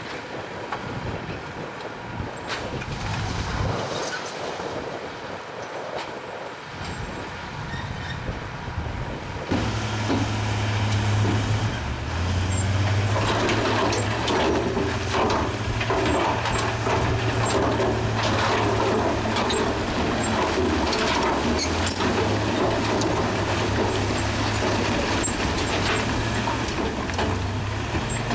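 Wind buffeting the microphone over a faint engine. About a third of the way in, a bulldozer's diesel engine comes in loud and steady, with clattering and scraping from the rock and machine over it.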